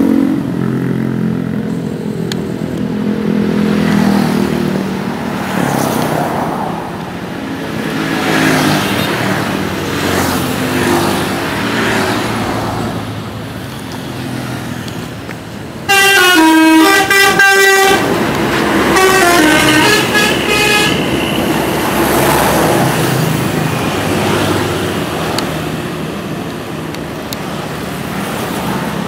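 Heavy bus engine and traffic noise, then about halfway through a loud 'telolet' multi-tone bus horn plays a short stepping melody, with a second phrase a couple of seconds later, before the engine noise carries on.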